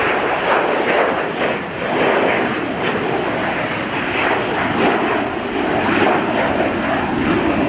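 Boeing 737-500's twin CFM56-3 turbofan engines at takeoff thrust as the jet climbs out: loud, rough jet engine noise that swells and eases unevenly every second or so.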